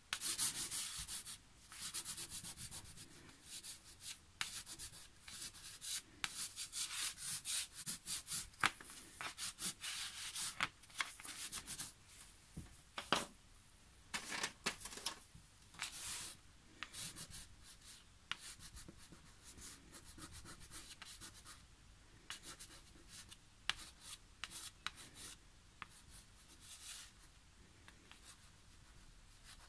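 Wax crayon rubbed across drawing paper in quick scratchy strokes. The strokes are dense at first and come in shorter, sparser runs in the second half.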